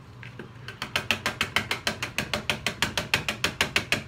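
Fast, even clicking, about seven knocks a second, of a utensil being stirred round against the side of a plastic bucket of cold process soap batter.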